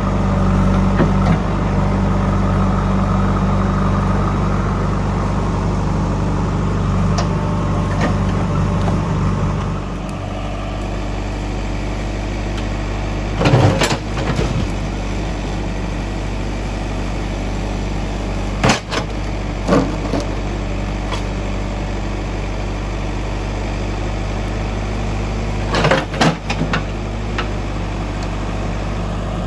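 A JCB 3DX backhoe loader's diesel engine runs steadily, working harder for the first ten seconds or so and then settling lower. Several short, sharp clanks come through over the engine.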